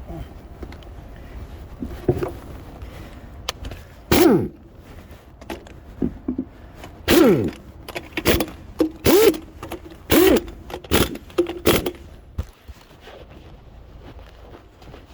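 Tools working on a car's wheels during a tyre change: about seven short, loud bursts between about four and twelve seconds in, several of them falling quickly in pitch.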